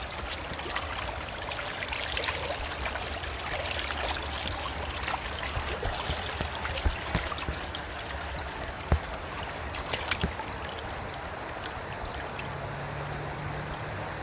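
River water running and splashing over stones, a steady rush dotted with small splashes. Three sharper splashes or knocks stand out about 7, 9 and 10 seconds in, and a faint low hum comes in near the end.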